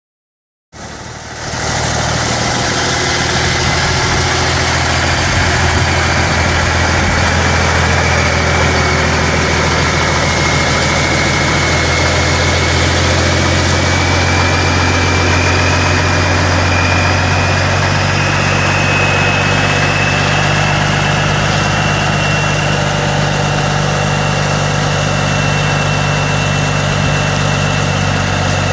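Cummins six-cylinder turbo diesel engine of a 1982 Oshkosh P23236 dump truck idling steadily, cutting in abruptly about a second in. A thin high whine runs over it, slowly rising in pitch.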